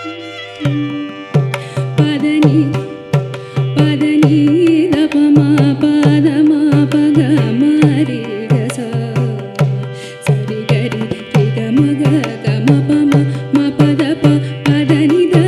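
Carnatic music: a mridangam played in a dense run of sharp strokes with regularly recurring deep bass strokes, under a gliding, ornamented melody from violin and voice.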